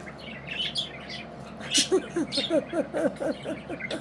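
Pet budgerigars chattering and chirping, with a quick run of low warbling notes starting about halfway through.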